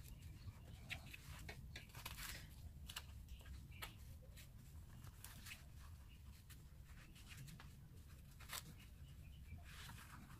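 Faint rustling and light scratches of yarn being drawn through stitches with a crochet hook in single crochet, irregular and close, over a low steady hum.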